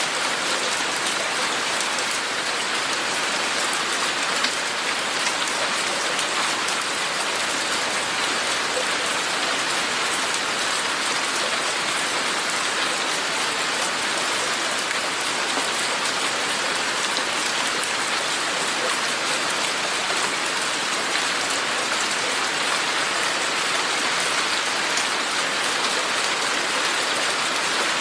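Steady rain falling, an even hiss with many fine drops pattering on surfaces.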